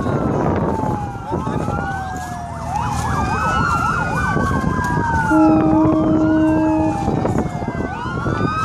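Several sirens wailing at once, overlapping slow rising and falling glides, with a rapid yelp pattern about three seconds in. A steady horn blast sounds for about a second and a half a little past the middle.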